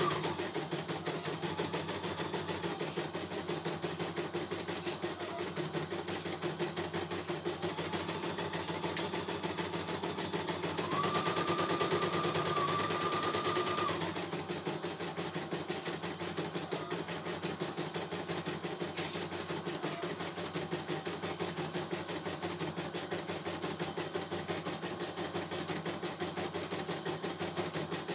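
CNY E900 computerized embroidery machine stitching a design: a rapid, steady chatter of needle strokes. A higher steady whine joins for about three seconds near the middle, and there is a single click later on.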